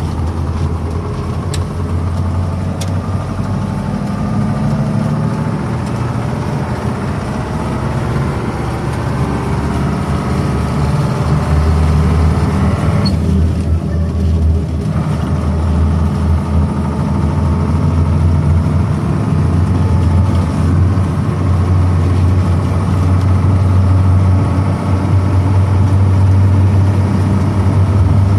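KamAZ truck's diesel engine running on the road, a steady low drone that grows slightly louder over the stretch.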